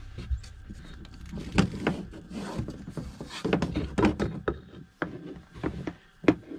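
Irregular knocks, clicks and clunks of things being handled and moved about inside a camper's storage compartment, with the sharpest knock near the end.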